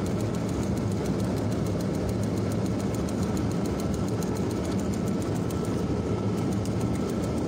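Steady drone of aircraft engines in flight, with a low hum and a fast, even ticking over it, during a close-up pass of a large aircraft dispensing flares.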